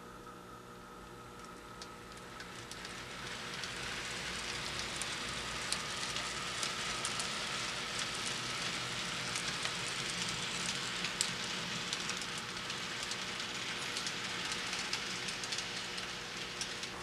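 Model train rolling along the layout track: a steady rattle of wheels with many small clicks, growing louder about two seconds in and easing off near the end as the cars pass.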